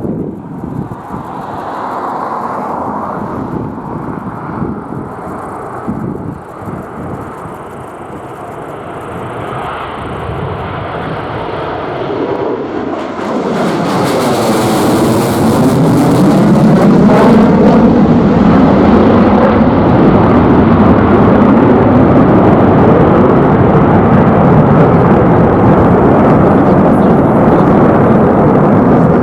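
Tupolev Tu-22M3 bomber's jet engines approaching and passing low, a roar that swells steadily and jumps to full loudness about halfway through, with a sweeping whoosh as it goes by, then holds.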